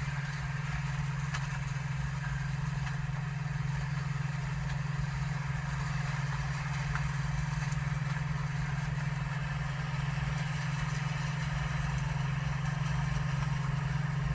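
Tractor engine running steadily, heard close from on board the vehicle, with an even low hum that grows slightly louder toward the end.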